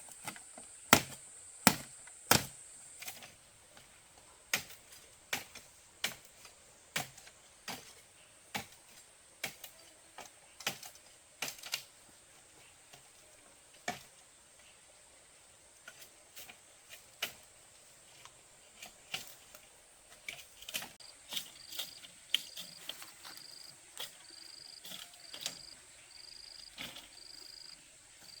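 Repeated sharp knocks of a hand tool striking wood or bamboo, about one a second at first, then more irregular and softer. Under them insects buzz steadily and high, and about two-thirds in a high cricket-like chirp starts, pulsing about twice a second.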